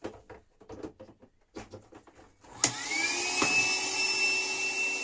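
Vacuum cleaner used as the suction pump for a vacuum filtration, switched on about halfway through: a sudden start, a whine that rises quickly as the motor spins up, then a steady high whine over a loud rush of air. Before it, a few faint clicks of handling.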